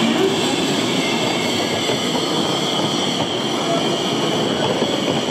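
A train running on rails: a steady noise with a faint, continuous high whine above it.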